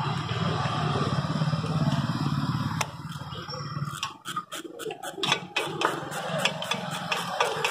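A low steady rumble that drops away about three seconds in, then sharp metallic clicks of a hand tool running in bolts on a motorcycle engine's side casing, quickening to a steady three or four clicks a second near the end.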